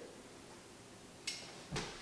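Two brief kitchen clinks: a serving utensil against a metal pot as noodles are dished onto a plate. There is a short scrape-like clink about a second and a quarter in and a sharper knock near the end, against a quiet room.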